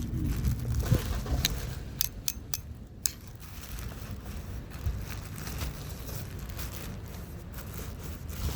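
Handling sounds of an anvil being unpacked: a quick run of sharp clicks and knocks between about one and three seconds in, over a steady low rumble.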